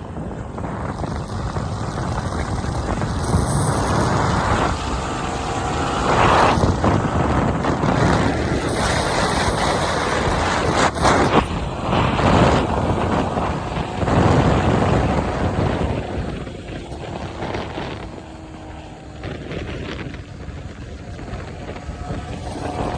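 Yamaha R15 motorcycle being ridden, its single-cylinder engine rising in pitch as it accelerates, under heavy wind noise on the microphone.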